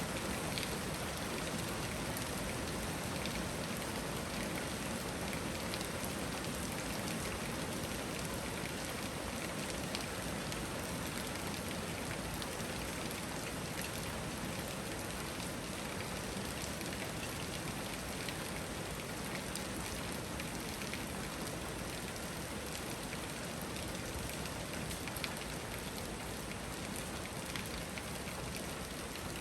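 Steady rain shower falling, a continuous hiss with scattered individual drops ticking on surfaces.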